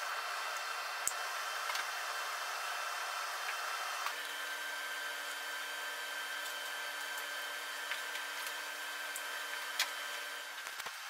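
Steady workshop background hum and hiss, its tone changing slightly about four seconds in, with a few light, sharp clicks as hoses and cables are handled, the loudest near the end.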